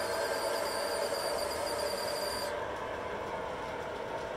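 MTH O-gauge model trains running on three-rail track: a steady rumble of wheels on rail with the hum of the locomotive motors. A high-pitched whine stops abruptly about two and a half seconds in, while the running noise continues.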